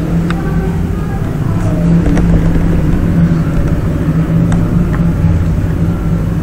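A steady low mechanical hum, with a few sharp mouse clicks as shapes are selected and deselected.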